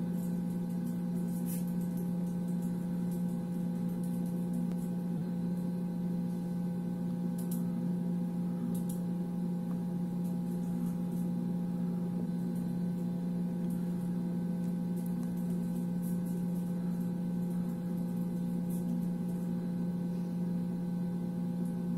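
Steady motor hum played as the spatial sound effect of a virtual ABB IRB 6620 industrial robot model while the arm moves: a low drone with several fainter, higher steady tones over it, unchanging throughout.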